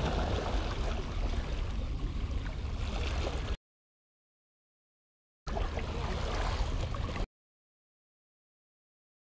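Small waves lapping and washing against breakwater rocks under a low rumble of wind on the microphone. The sound cuts to dead silence about three and a half seconds in, returns for under two seconds, then cuts out again.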